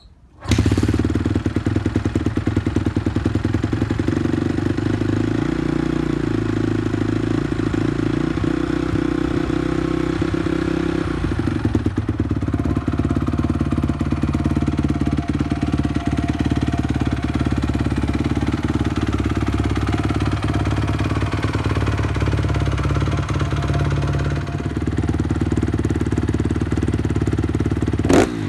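2014 Honda CRF250R four-stroke single-cylinder motocross engine, breathing through Pro Circuit Ti-6 dual mufflers, catching about half a second in and then idling steadily; its note shifts about eleven seconds in, and it gets a quick sharp blip right at the end.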